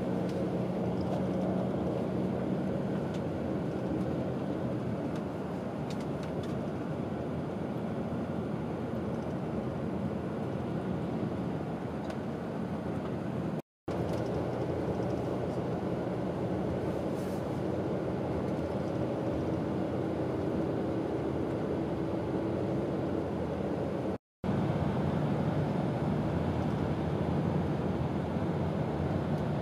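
Steady engine and road noise inside a moving tour coach, a low even drone with a faint hum. It drops out completely twice for an instant, about halfway through and again later.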